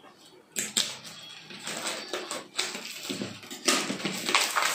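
Clear plastic shrink wrap being cut and pulled off a small cardboard box, crinkling and crackling irregularly, starting about half a second in.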